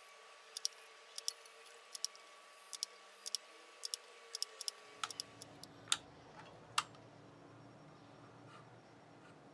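Sharp little clicks from small parts being handled, mostly in quick pairs a little under a second apart for about five seconds, then a few louder single clicks, then they stop.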